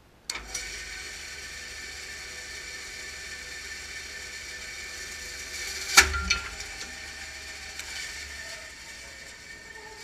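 JET 12-inch bandsaw starting up and running steadily with a whine. About six seconds in, a sharp loud crack, then a smaller one, as the blade grabs the unclamped rounded wooden plaque and yanks it down toward the table; the saw keeps running after it.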